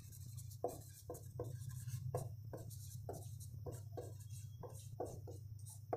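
Marker pen writing on a whiteboard: short, faint strokes, about two or three a second, over a low steady hum.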